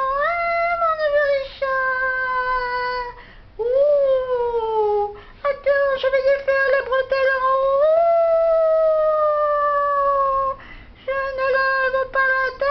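A high-pitched voice holding long sliding notes in several phrases, the longest about five seconds, rising and then slowly falling in pitch.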